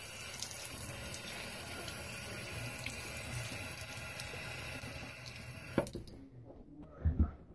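Bathroom sink tap running, its stream splashing into the basin, cut off suddenly about six seconds in. A couple of thumps near the end.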